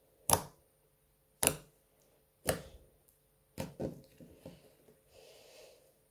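Fingers pressing into slime, making sharp wet pops: four loud ones about a second apart, then a quicker run of smaller ones, then a softer crackle as the slime is pulled out and stretched near the end.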